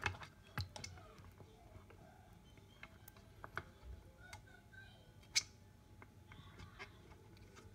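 Faint squeaks, small clicks and ticks of a wet flexible dinosaur mould being peeled and worked off a cast of melted tie-down strap plastic, with one sharper click about five seconds in.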